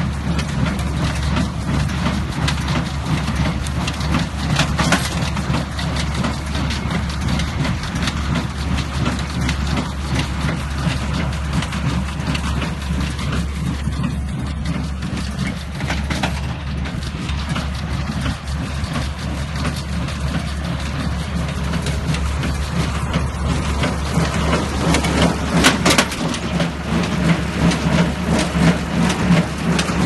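Tractor engine running steadily while pulling a small square baler through straw, with the baler's clatter and a few sharp knocks.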